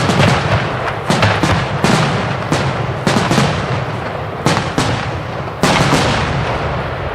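Large starmine fireworks barrage: aerial shell bursts bang in rapid succession, then thin out, with a last loud burst about five and a half seconds in, followed by a fading rumble of echo.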